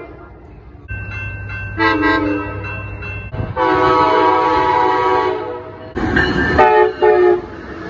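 Locomotive air horn sounding a chord of several notes: a short blast about two seconds in, a long blast of nearly two seconds, then two short blasts near the end.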